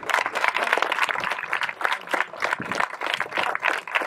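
A crowd of schoolchildren applauding: a dense, continuous patter of many hands clapping.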